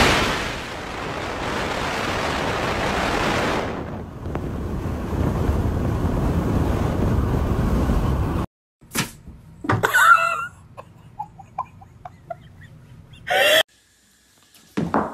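Wind rushing past an open car window while the car is moving, heavy wind noise on the microphone, cutting off suddenly about eight seconds in. A few short high-pitched sounds follow.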